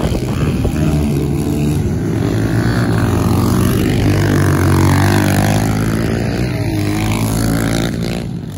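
Several Kawasaki KLX110 pit bikes racing, their small air-cooled four-stroke single-cylinder engines revving up and down over one another. The sound is loudest about halfway through as the bikes come close, then falls off near the end.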